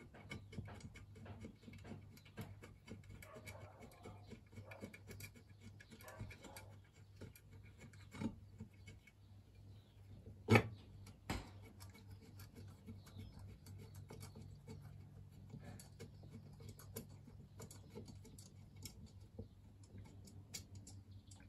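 Ratchet wrench clicking in short runs while 10 mm bolts are wound out of a motorcycle engine, with small metal scrapes and taps. A sharp knock about ten seconds in, with a smaller one just after, is the loudest sound.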